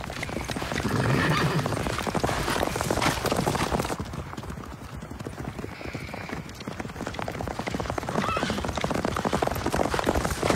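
Several horses galloping, a fast clatter of hoofbeats, with a horse neighing.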